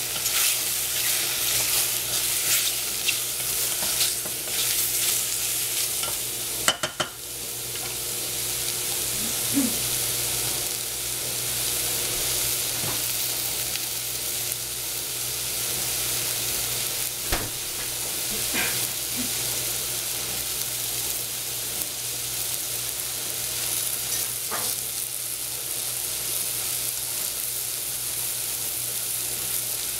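Sliced shiitake mushrooms sizzling in a stainless steel saucepan over a gas flame. A wooden spatula stirs and scrapes them for the first several seconds and stops with a couple of knocks about seven seconds in. After that there is a steady sizzle with an occasional pop.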